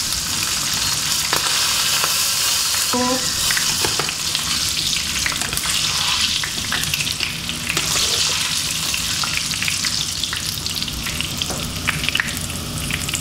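Peanuts, chillies and garlic frying in hot oil in a nonstick pan, sizzling steadily with sharp popping crackles; the heat has just been switched off because the oil is popping. A metal skimmer stirs and scrapes through the pan, lifting the fried peanuts out.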